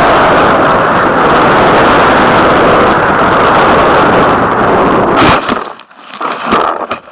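Model airplane's motor and rushing air, a loud harsh noise through the nose-mounted key-chain camera's microphone. About five seconds in the plane hits the ground with a sharp impact, the motor noise cuts off, and a few short thumps follow as it comes to rest in the grass.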